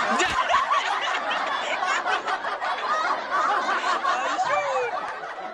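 A group of men laughing and calling out over one another, many voices overlapping.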